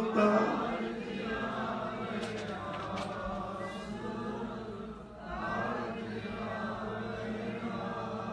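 A congregation of sangat singing a line of Gurbani back in unison in call-and-response, a blurred chorus of many voices. It comes in two phrases, with a brief drop about five seconds in.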